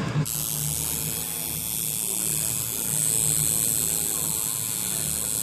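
Tattoo machine buzzing steadily as the needle works ink into the skin, with a steady hiss over it that starts just after the beginning.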